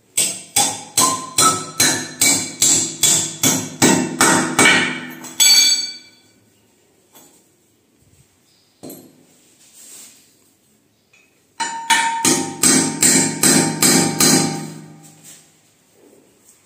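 Hammer blows in quick, even runs of about three a second, each with a short ringing tone: a run of about five seconds, a pause, then another run of about four seconds, while a western toilet pan is being fixed to the floor.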